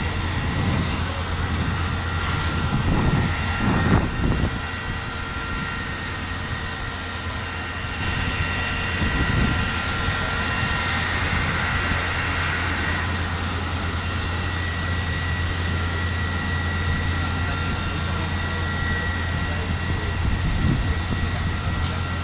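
A large engine running steadily: a constant low drone with a steady high whine above it.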